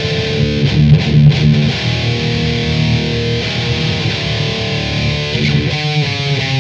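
Double-tracked distorted electric guitar tuned to D standard, playing a heavy metal intro riff of low, sustained chords.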